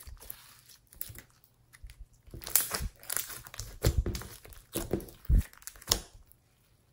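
Hands stretching, folding and pressing glittery clear slime mixed with eyeshadow: irregular sticky crackles and pops, sparse at first, busiest in the middle, stopping about a second before the end.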